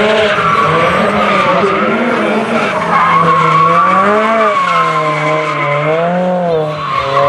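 Mazda MX-5 Miata drifting: its engine revs rise and fall about once a second as the throttle is worked, over a steady squeal of the rear tyres spinning and sliding sideways.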